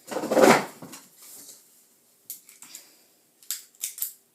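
Handling of a plastic toy rifle and its toy bullets: a loud rustle in the first second, then several light, separate plastic clicks.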